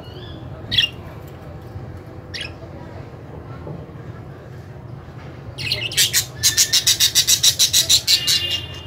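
Budgerigars calling: two short, sharp chirps early, then a fast run of rapid, evenly repeated squawking calls, about eight a second, for nearly three seconds.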